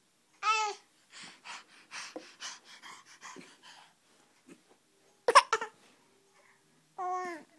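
A dog breathing heavily in a run of quick puffs, with a short whining call that falls in pitch about half a second in and another near the end. A single loud, sharp burst of breath just past the middle is the loudest sound.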